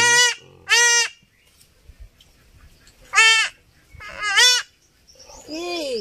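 A 15-day-old male goat kid bleating in distress as it is held down and castrated: about five short, high bleats, the last one lower-pitched near the end.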